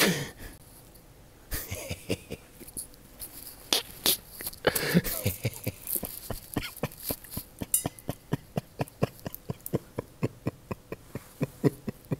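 A man laughing hard without words: a long run of short breathy, wheezing gasps that come thicker and faster, about four a second, in the second half.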